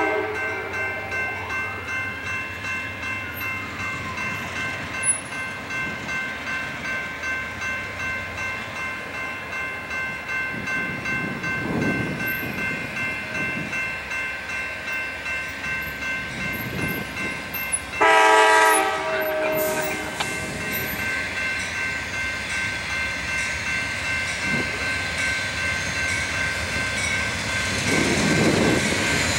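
Grade-crossing warning bell ringing steadily at about two strokes a second. An approaching diesel locomotive sounds one horn blast of about a second and a half, roughly two-thirds of the way through, and its engine rumble grows near the end as it nears the crossing.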